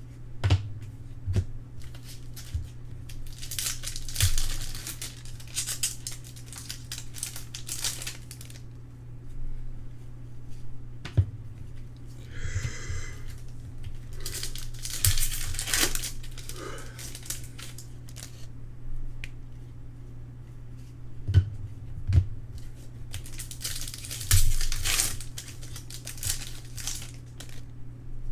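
Trading card pack wrappers being torn open and crinkled in three stretches, with light taps and knocks of cards being handled, over a steady low hum.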